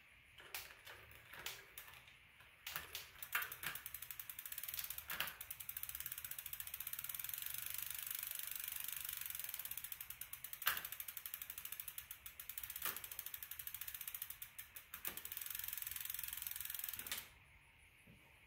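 Bicycle rear wheel spinning with its freehub ratchet ticking rapidly and the chain running over the cassette and rear derailleur, with several louder clicks along the way; the ticking stops suddenly near the end.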